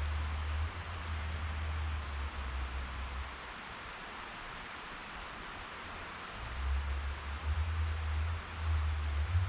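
Outdoor ambience: a steady hiss with a low rumble of wind on the microphone. The rumble drops away for a few seconds in the middle and returns near the end.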